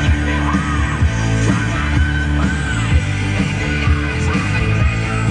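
A rock song with singing and drums playing on the car's FM radio through its 10-speaker Infinity audio system, heard inside the cabin.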